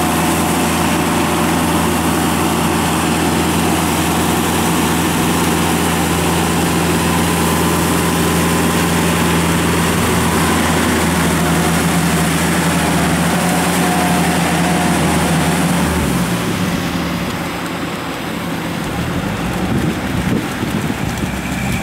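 Diesel tractor engines running steadily as they work a flooded rice paddy: a cage-wheeled tractor with a harrow and a red Kubota with a rotary tiller. About sixteen seconds in, the engine note changes and drops a little in loudness as the close-by Kubota takes over.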